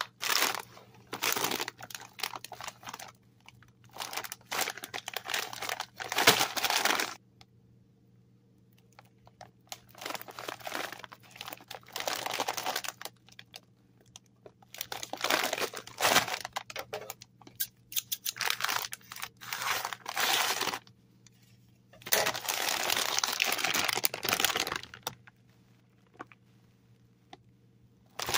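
Plastic Takis chip bag crinkling as it is handled and torn open, in spells of a few seconds with short quiet gaps between them.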